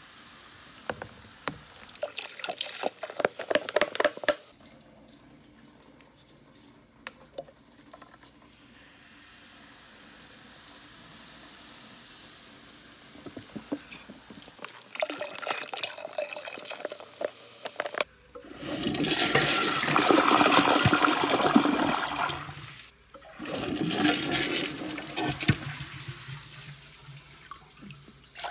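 Toilet flushing: a loud rush of water that swells about two-thirds of the way through and runs for several seconds, breaks off briefly, then rushes again, after earlier bursts of splashing and crackling.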